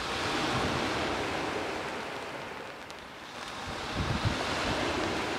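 Small Black Sea waves washing onto the beach, the wash swelling, ebbing and swelling again. Wind gusts buffet the microphone about four seconds in.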